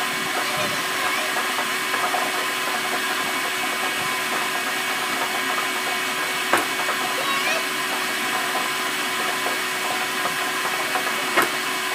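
Electric air blower driving a homemade draft ball machine, running steadily as the balls are blown around inside the plastic jug. Two sharp clicks stand out, one about six and a half seconds in and one near the end.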